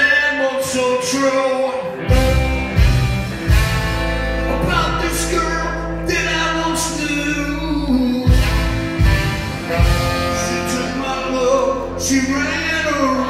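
A live rock band plays a song with lead vocals, on electric guitars, bass, drums, keyboards and saxophone. The bass and drums come in about two seconds in.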